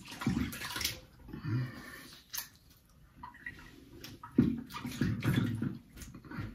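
Water splashing at a bathroom sink in several irregular bursts, the loudest about four and a half seconds in.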